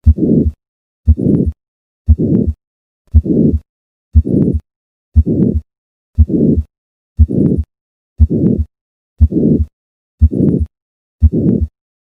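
Heart sounds through a stethoscope from a heart with hypertrophic cardiomyopathy, heard at the fourth left intercostal space. About one beat a second, each a sharp first heart sound followed by a short systolic murmur, with silence before the next beat.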